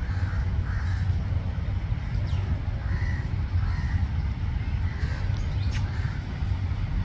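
Bird calls, crows among them, scattered over a steady low rumble, with a couple of short high chirps.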